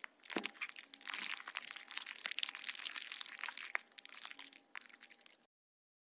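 ASMR crunching and scraping sound effect: a dense crackle of small clicks and scratchy noise that stops about five and a half seconds in.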